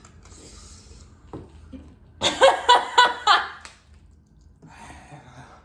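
A person laughing: a burst of about five loud, quick pulses lasting about a second and a half, starting about two seconds in. Quieter breaths come before and after.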